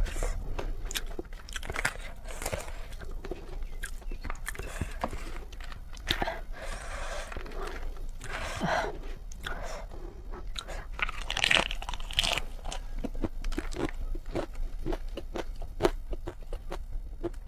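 A person eating spicy noodles close to the microphone: steady chewing and biting, with many quick small clicks of the mouth and a few short louder patches.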